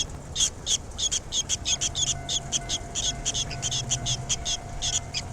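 Red-rumped swallows chirping at the nest: a rapid, continuous run of short, high chirps, several a second.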